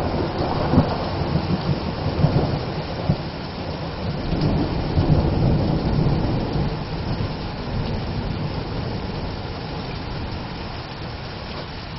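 Thunder rumbling through a heavy downpour of rain. The rumble swells again about four to six seconds in, then fades, leaving the steady rain.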